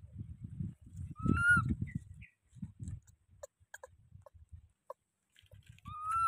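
Infant macaque giving two short coo calls, one about a second in and one near the end, each a clear tone that rises slightly. Low rumbling noise and a few faint clicks run underneath.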